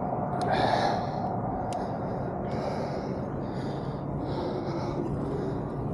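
A cyclist breathing in quick, regular breaths while pedalling hard, over a steady rush of wind and tyre noise on the microphone.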